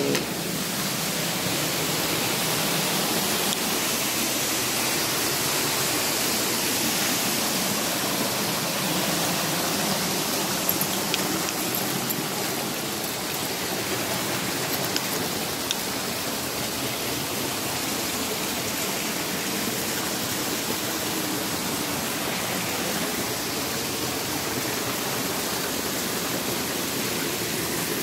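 Waterfall: a steady rush of falling water, with a few faint clicks in the middle.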